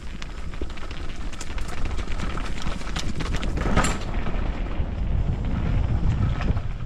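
Enduro motorcycle riding a rough dirt trail: a steady low rumble of engine and wind on the microphone, with many sharp knocks and clatters from stones and the bike over the rocks. A louder clatter comes about four seconds in.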